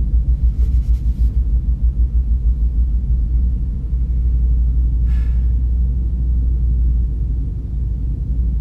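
2013 Ford Mustang GT's 5.0 V8 idling, heard from inside the cabin as a deep, steady low rumble, its level pulsing evenly for the first few seconds before it settles.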